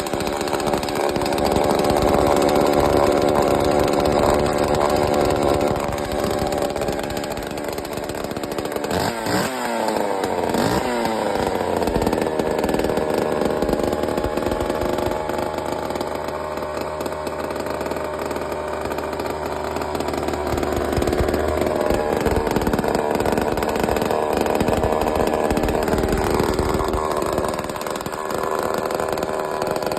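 Vintage Homelite 2100 Special two-stroke chainsaw engine running loudly, its speed swinging up and down about ten seconds in, then running steadily.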